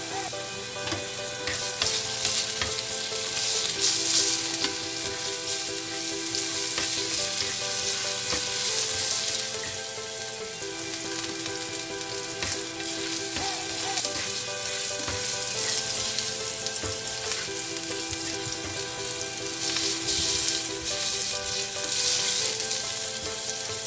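Minced garlic sizzling in hot oil in a non-stick frying pan, a steady hiss, with light knocks as a spatula stirs it.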